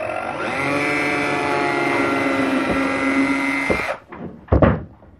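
Bosch cordless drill motor running steadily for about four seconds as it drills into a small block of wood, then stopping sharply. A short knock follows about half a second later.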